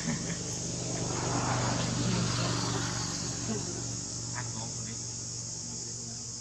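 A motor vehicle's engine passing, swelling to its loudest about two seconds in and then fading, over a steady high drone of insects. A couple of short chirps come past the middle.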